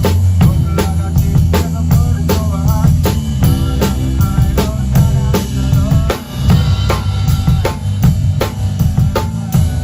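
Live band of drum kit, bass guitar, electric guitar and keyboard playing an instrumental passage without vocals. Kick and snare drum keep a steady driving beat over heavy bass, and the sound drops briefly about six seconds in.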